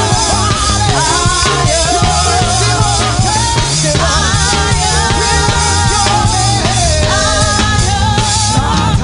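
Live gospel praise-break music: a church band with drum kit and bass playing continuously, with voices singing wavering, held lines over it.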